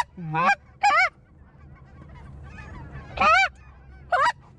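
Canada goose honks, loud and close: a low note breaking up into a high honk near the start, then two more single high honks about 3 and 4 seconds in.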